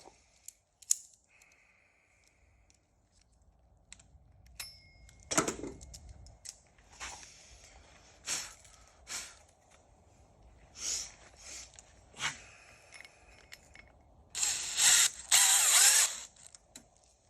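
Hand work on a metal car suspension arm: scattered metallic clicks, clinks and knocks as tools handle the part, then a loud, harsh burst of noise lasting about a second and a half near the end.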